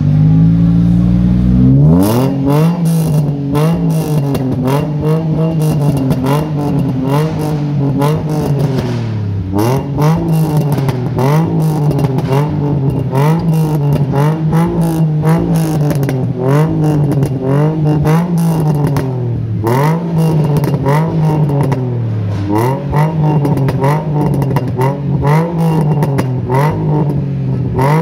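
Nissan 350Z's 3.5-litre V6 being revved through a loud aftermarket dual exhaust. The revs climb in the first two seconds, then come as repeated blips about once a second, the pitch rising and falling each time, with sharp crackles throughout.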